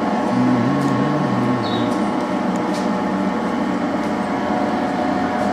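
Steady machinery hum with several fixed tones over a constant noise, and a short low wavering tone in the first two seconds.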